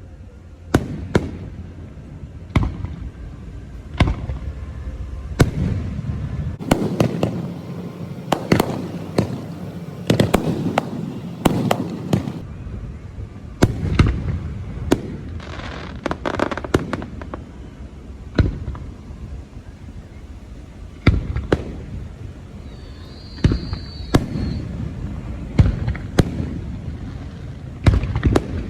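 Firecrackers and fireworks going off: many sharp bangs and pops at irregular intervals, with a denser stretch of crackling about a quarter to two fifths of the way through.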